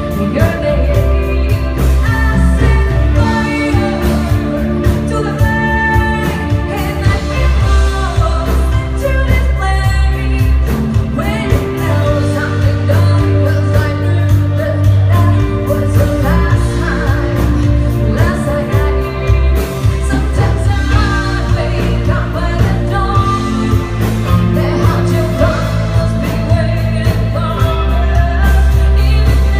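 A singer performing a pop song over band accompaniment, with a steady, strong bass line under the vocal melody.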